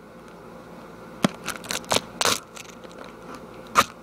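A thin plastic DVD case and its wrapping crackling and clicking as it is handled and opened. There are several sharp crackles in the middle and one loud click near the end.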